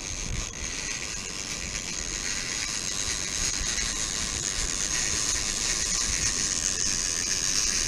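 Fishing reel's drag buzzing steadily as a hooked fish pulls line off the reel.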